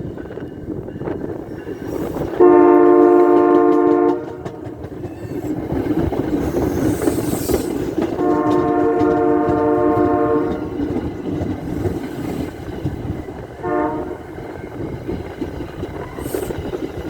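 Air horn on an MBTA Commuter Rail cab car sounding a chord in two long blasts of about two seconds each, then a short blast near the end. Under the horn is the steady rumble and wheel clatter of the train pulling out.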